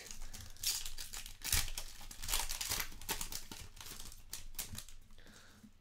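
Foil trading-card pack crinkling and tearing open in the hands, a run of rustles and sharp crackles that fades toward the end.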